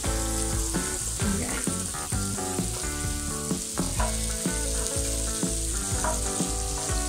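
Chopped onions and curry leaves sizzling in hot oil in a nonstick wok, sautéing to soften, while a wooden spatula stirs them with scattered knocks and scrapes against the pan.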